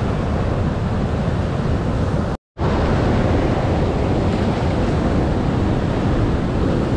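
Steady rush of white water pouring over a dam's spillway weir and churning downstream, with wind on the microphone. The sound cuts out completely for a moment about two and a half seconds in, then resumes.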